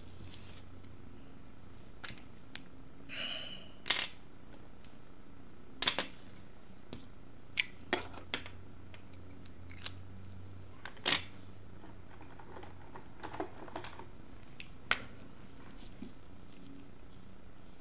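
Art markers being handled while colouring: scattered sharp plastic clicks and taps as markers are capped, uncapped, swapped and set down, about eight in all, the loudest near 4, 6, 8 and 11 seconds in.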